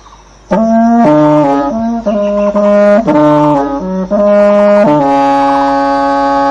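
A reed or brass wind instrument plays a short melody of quick changing notes after a brief pause, then holds a long steady note near the end.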